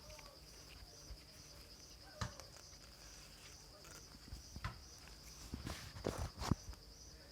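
Faint insect chirping, a steady high pulsing trill, with a few soft knocks and taps of handling, the loudest about six and a half seconds in.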